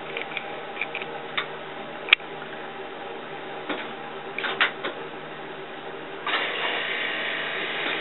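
Western Electric 555 cord switchboard being worked: scattered sharp clicks as patch-cord plugs are pushed into jacks and keys are thrown. About six seconds in, a louder steady sound sets in and carries on.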